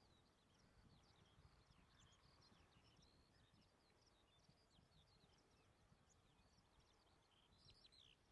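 Near silence with faint birdsong: many short, high chirps running on throughout, over a faint low rumble.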